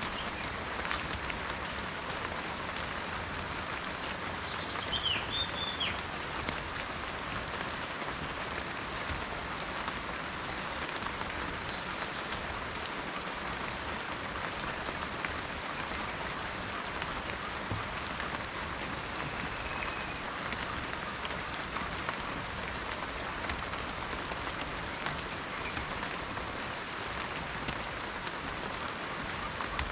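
Steady rain falling on a spruce forest, an even patter of drops on branches and ground. A short high chirp cuts through about five seconds in, and a fainter one comes a little after twenty seconds.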